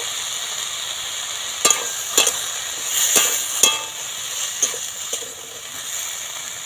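Potato chunks and pumpkin-leaf stems sizzling in oil in a wok while a spatula stirs them. The spatula knocks and scrapes against the pan about six times in the middle of the stretch.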